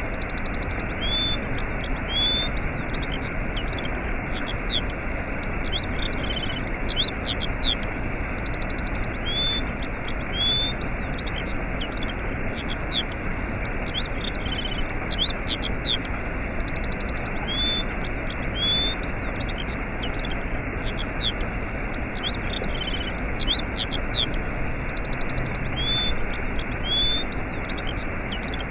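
Steady rush of a waterfall, with small birds chirping and trilling over it; the same short bird phrases come back again and again, as in a looped recording.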